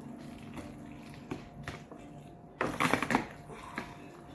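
Pepper shaker shaken in a few quick rattling shakes about two and a half seconds in, over faint kitchen noise.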